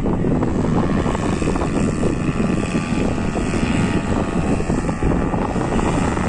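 Paramotor engine and propeller running steadily.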